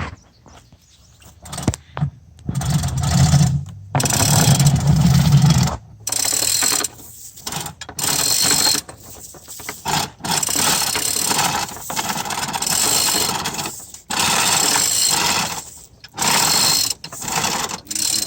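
Hoist rigging lifting a heavy diesel engine block: repeated bursts of mechanical rattling, each a second or two long, with short pauses between the pulls.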